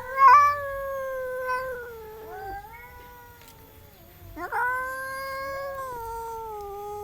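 Domestic cats caterwauling in a territorial standoff: long, drawn-out yowls, one trailing off in the first two and a half seconds and another starting about four seconds in and held on.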